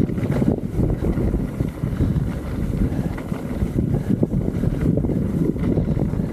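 Wind rushing over the microphone, a loud unsteady low rumble that buffets without a break.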